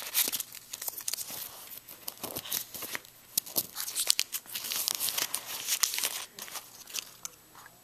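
Orbit chewing gum pack and its paper-wrapped gum sticks crinkling and tearing as a stick is pulled out and handled, in irregular crackles that die down near the end.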